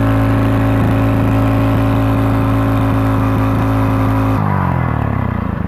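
Small single-cylinder OHV engine held at high speed by hand on its throttle linkage, running steadily, then dropping back toward idle a little over four seconds in as the throttle is let go.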